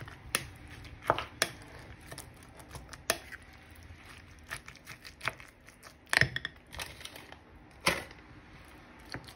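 A spoon stirring a wet mixture of minced beef, chopped prawns and raw egg in a bowl, with irregular clicks as the spoon knocks against the bowl, the sharpest about six seconds in.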